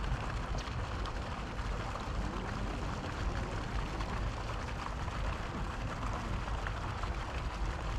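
Steady outdoor noise, a rushing hiss with a low rumble, and a few faint ticks.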